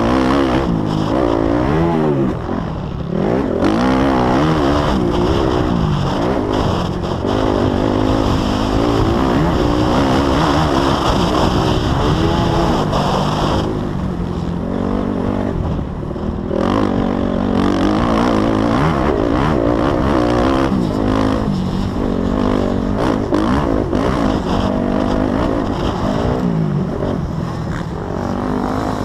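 Motocross bike engine revving up and down again and again as the throttle is opened and closed around the track, heard up close from the rider's own bike.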